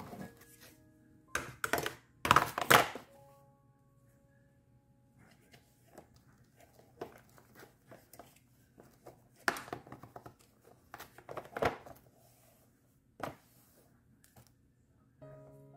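Thin black plastic seedling trays being handled and set down: short rattling clatters and knocks, loudest about two to three seconds in, again around ten to twelve seconds and once more near thirteen seconds, over quiet background music.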